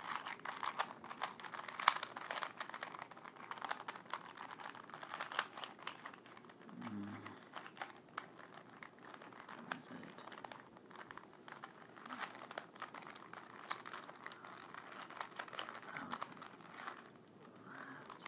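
Rubik's cube being twisted by hand: quick, irregular clicking and clacking of the plastic layers turning.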